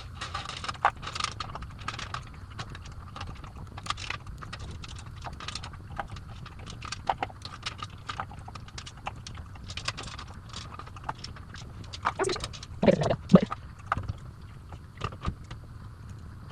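Irregular light clicks and taps of hands handling a lace-front wig and the tools used to install it, close to the microphone, over a low steady room hum.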